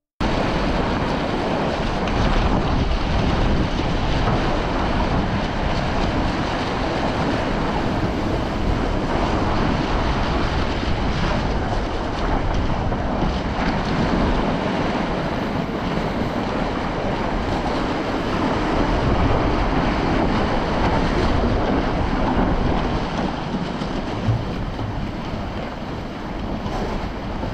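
Heavy wind buffeting the microphone over water rushing and splashing along the hull of a small racing sailboat driving through choppy water in gusty wind.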